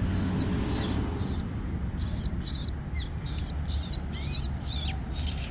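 A bird chirping over and over, about nine short, wavering high chirps roughly half a second apart.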